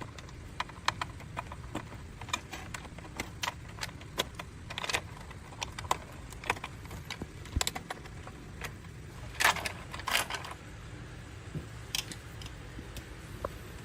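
Hands working on a massage chair's control board: irregular small clicks and knocks of parts being handled, with two louder scraping rustles about nine and a half and ten seconds in, over a low steady hum.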